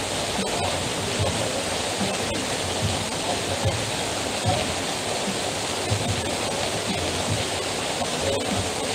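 Heavy rain falling steadily, water pouring off a roof edge, with scattered low soft thuds of water striking below.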